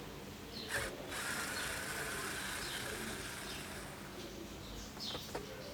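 Screwdriver backing out the cross-head screws that hold a car's dashboard cassette head unit: a sharp click about a second in, then a few seconds of steady turning noise, with a few more clicks near the end. Short bird chirps in the background.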